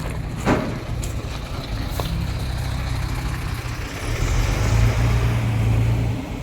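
Semi-truck diesel engine idling steadily, with a short knock about half a second in. The engine note grows louder and firmer from about four seconds in, then settles back.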